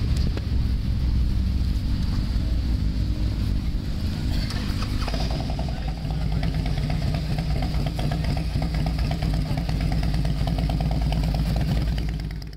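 Motorcycle engines running at low revs, a steady low rumble, with a second, higher engine note joining about five seconds in.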